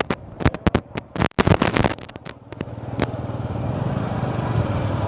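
About two and a half seconds of choppy, broken-up noise with brief dropouts, then the steady low hum of a motor vehicle's engine that slowly grows louder.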